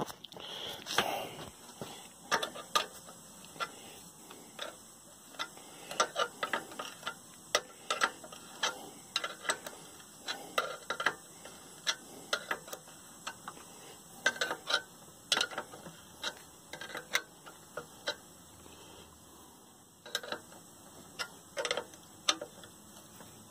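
Hand ratchet clicking in short, irregular runs of sharp metallic ticks as bolts on a drill press head extension are tightened down.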